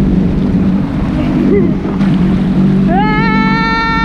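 Jet ski engine running steadily under the rush of wind and water. Near the end a rider lets out a long high-pitched whoop that rises, then holds for about a second.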